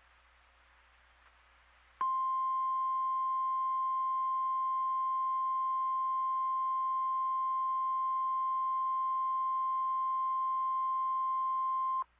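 NOAA Weather Radio 1050 Hz warning alarm tone: a single steady beep that starts sharply about two seconds in, holds at one pitch for about ten seconds and cuts off suddenly. The tone is the alert signal that an urgent weather warning message is about to follow.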